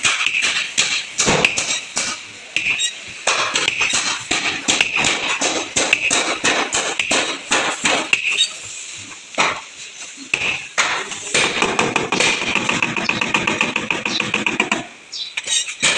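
Hammer blows on the sheet-steel side body panel of a Maruti Suzuki Baleno during dent repair, struck irregularly with a metallic ring. A fast run of lighter, close-spaced taps comes about two-thirds of the way in.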